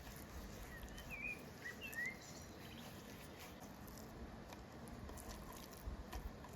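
A few short, quick bird chirps about a second in, over faint outdoor background with scattered light ticks and a couple of low thumps near the end.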